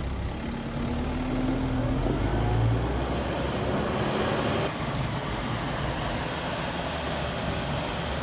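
Kubota M7060 tractor's diesel engine running steadily with a low drone, a whining tone over the first few seconds, and a slight easing of the sound about four and a half seconds in.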